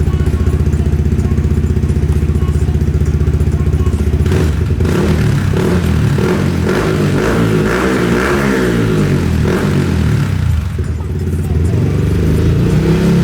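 Yamaha XSR155's single-cylinder engine through a Yoshimura GP-Magnum full-system exhaust, idling with an even pulsing beat, then revved up and down repeatedly from about four seconds in and settling back to idle near the end.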